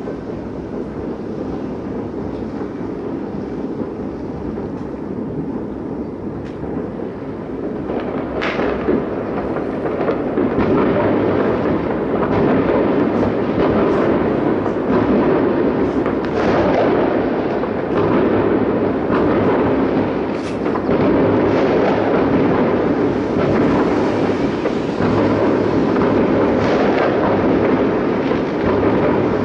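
Distant fireworks salute: many shells bursting in close succession, blending into a continuous rumble with sharper bangs on top. It grows louder about eight to ten seconds in.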